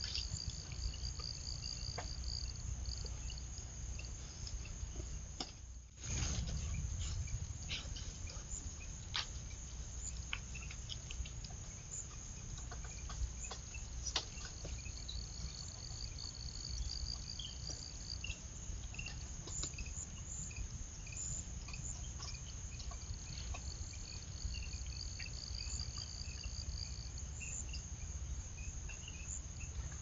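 Outdoor insect chorus with crickets: a steady high-pitched insect drone, and a pulsing trill that comes and goes in spells of a few seconds three times. Scattered faint clicks and a low rumble lie underneath, and the sound briefly drops out about six seconds in.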